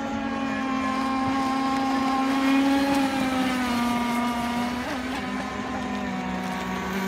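Radio-controlled speedboat motors running flat out, a steady high drone in two pitches. The higher pitch drops slightly about three seconds in.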